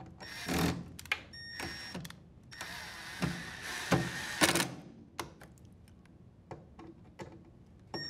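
Cordless drill/driver running in three short bursts with a whining motor, driving the screws that hold a dryer door latch, with sharp clicks of the bit on the screws. After about five seconds only scattered light clicks remain.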